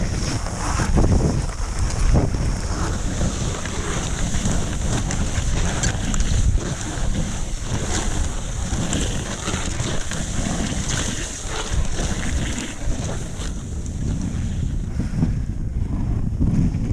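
A moving dog sled's runners sliding and scraping over packed snow, a steady rushing hiss with scattered small knocks and rattles from the sled, mixed with wind buffeting the microphone.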